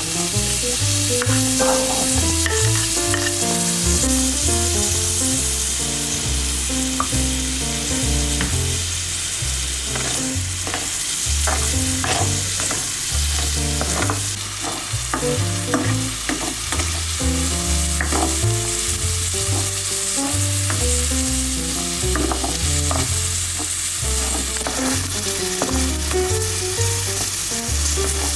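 Food sizzling and frying in a hot pan, a steady hiss, with frequent sharp clicks and taps of a utensil against the pan as it is stirred or turned.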